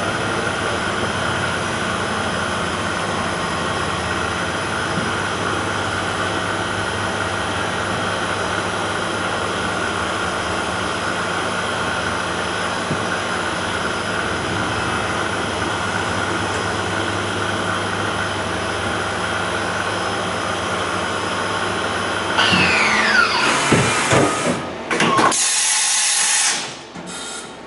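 Okuma MC-40VA vertical machining centre's spindle running steadily at around 4,500 RPM with a steady whine. About 22 seconds in, the spindle spins down in a falling whine. This is followed by a few seconds of loud rushing bursts, and then the machine goes much quieter near the end.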